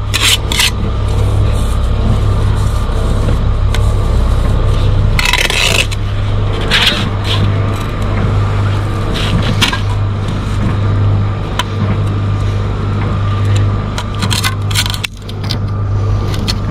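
Steel brick trowel scraping and spreading mortar onto a brick, in short strokes a few times, over a steady low mechanical hum.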